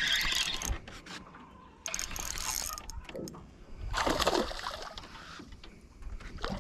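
Spinning reel being cranked to bring in a hooked bass, its gears running in three spells of reeling: near the start, about two seconds in and about four seconds in.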